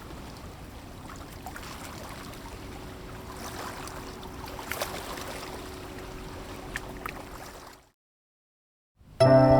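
Lake water lapping and gurgling, with a few faint clicks. It fades out about eight seconds in, then after a second of silence, piano music begins near the end.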